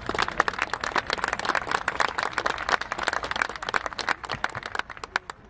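Crowd applause: many hands clapping, fading steadily and nearly gone by the end.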